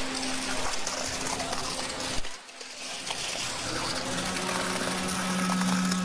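Concrete pump running as wet concrete pours from the boom's end hose into a wooden form, the sound dropping off briefly a little past two seconds in.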